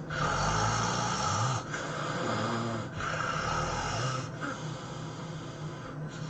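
A person snoring heavily: long, loud snores with a low rumble through the first four seconds, broken by short gaps, then quieter after about four seconds.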